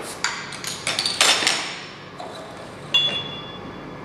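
Crown caps being prised off glass beer bottles with a metal bottle opener: a quick series of sharp clinks and metallic pings in the first second and a half, then a single ringing glass clink about three seconds in.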